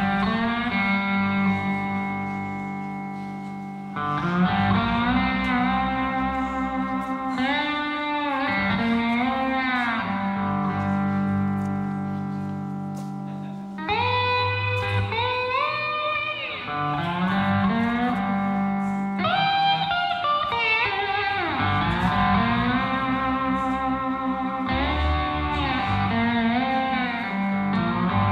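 Guitar music: electric guitar playing held and bending notes over a low bass line, with a new phrase coming in about 4 seconds in and again about 14 seconds in.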